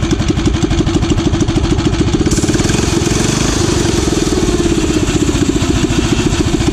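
Tillotson 212cc single-cylinder engine, governor removed and fitted with a header pipe, running steadily with an even beat of firing pulses. Its new Tillotson TCT carburetor has just been tuned with the AFR (air-fuel mixture) screw richened.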